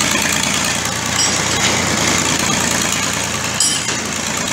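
Engine of a piling winch machine running steadily as it works the boring chisel of a cast-in-situ pile rig.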